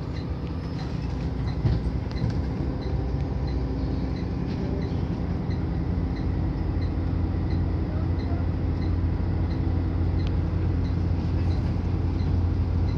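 Coach's engine running steadily at low speed, heard from inside the passenger cabin as a low drone that grows a little stronger about five seconds in. A short, faint high beep repeats about twice a second throughout.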